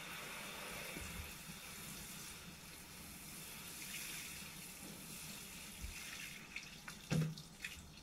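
Water showering from a plastic watering can's rose onto leaves and soil as an even hiss that fades out after about five seconds. A few short knocks follow near the end.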